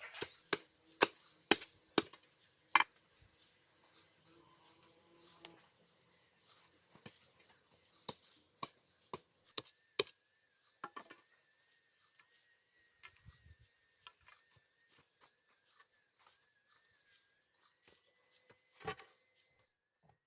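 Wood being chopped: a quick run of sharp strikes about two a second in the first few seconds, then slower, irregular chops that thin out to occasional light knocks, with one more strike near the end.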